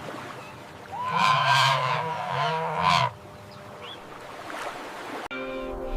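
Flamingo giving one long, nasal, goose-like honk lasting about two seconds, starting about a second in. It ends with a sudden change to a steady low hum near the end.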